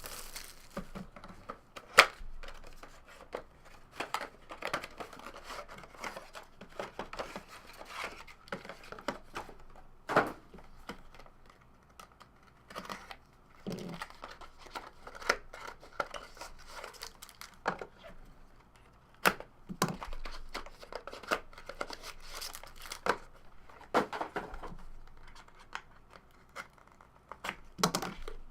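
Plastic wrapping being torn and crinkled off a trading card box, mixed with uneven clicks and knocks of cardboard being handled.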